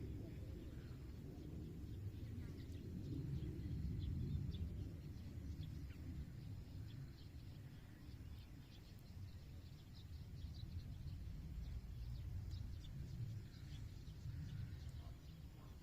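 Outdoor ambience: a low, fluctuating rumble with faint, scattered bird chirps throughout.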